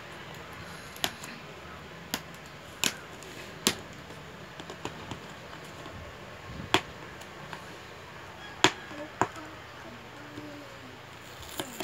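Hands handling a cardboard toy box: scattered sharp taps and knocks on the box, about seven over the stretch, with the loudest ones in the middle and latter part.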